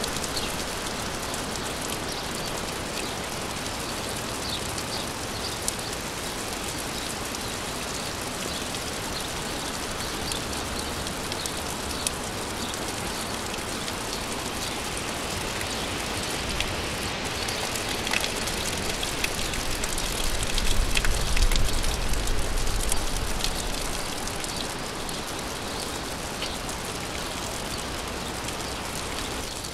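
Steady rain falling, with individual drops ticking close by. About two-thirds of the way through, a low rumble swells and fades away again.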